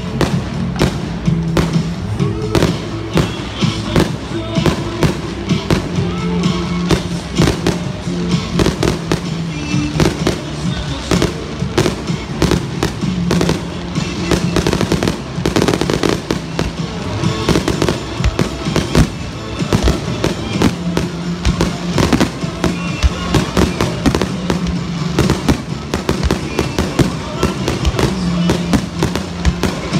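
Aerial fireworks going off one after another: many loud sharp bangs and crackles in rapid, irregular succession, with no pause.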